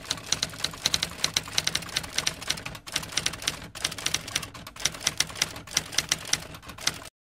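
Typewriter keys clacking in quick, irregular strikes, several a second, as a line of text is typed out; the clacking stops abruptly just before the end.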